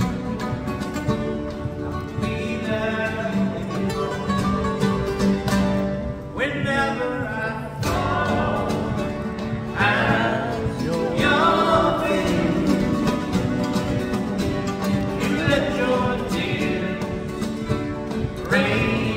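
Live acoustic music: two nylon-string guitars playing together, with a man's voice singing from about six seconds in.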